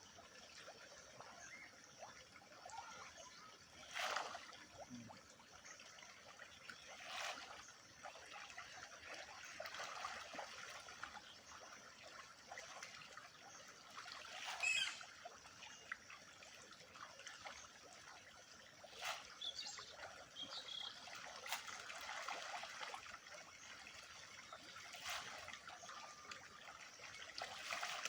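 Water trickling and splashing at a pond, with a few short sharper splashes standing out, the loudest about four seconds in and halfway through.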